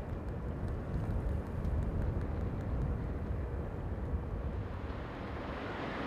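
Outdoor ambient rumble: a steady, low, noisy rumble that turns brighter and more hissing near the end.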